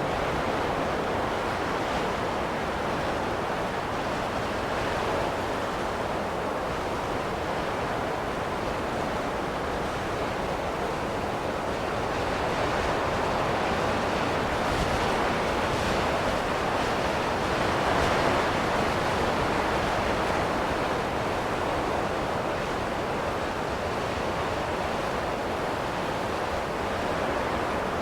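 Steady rushing wind of a snowstorm, swelling a little louder through the middle and easing off again.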